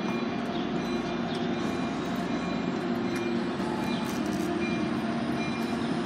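Steady drone of a Sound Transit Sounder push-pull commuter train, its diesel locomotive and on-board power running, with several low held tones under an even rumble.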